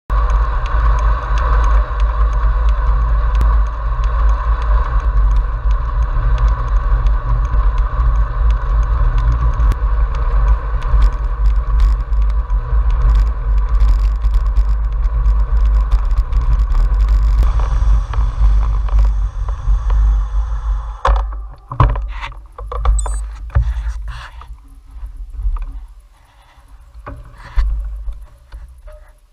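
Wind buffeting and tyre noise of a road bike being ridden, picked up by a GoPro mounted on the bike, heard as a loud, steady rumble with a hum over it. About twenty seconds in it falls away to quieter, scattered clicks and knocks.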